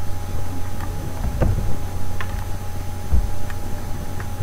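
Steady low electrical hum with a few scattered, faint clicks of a computer mouse.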